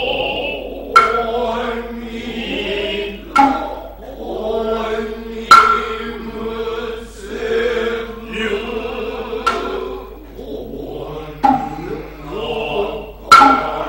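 Noh chorus chanting in unison, sustained and low, punctuated by sharp drum strikes about every two seconds.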